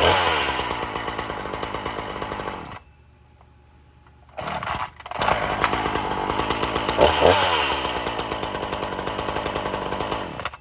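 Ryobi gas chainsaw's small two-stroke engine revved, falling back toward idle, then going silent about three seconds in. It starts again about a second and a half later, is revved once more and drops back to idle.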